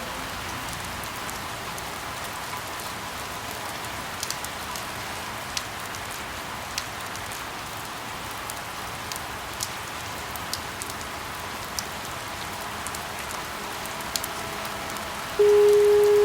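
Steady rain, an even hiss with scattered drops ticking sharply now and then. Near the end a loud, steady chime-like tone comes in over it.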